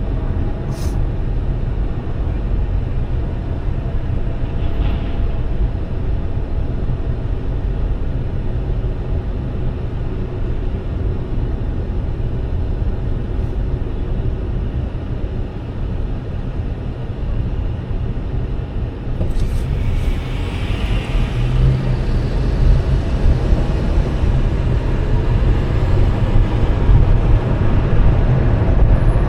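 Car driving, a steady low rumble of engine and road noise that grows louder about twenty seconds in.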